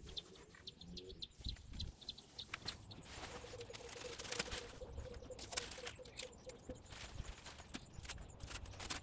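Masking tape and masking paper being peeled off a freshly painted motorcycle fuel tank: faint, irregular crackling and rustling. A faint steady hum runs under it from about three seconds in until nearly seven.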